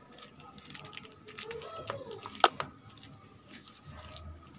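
Hand patting and pressing a soft, damp dal-and-colocasia-leaf mixture into a steel plate: a run of light pats and clicks, with one sharp click about two and a half seconds in.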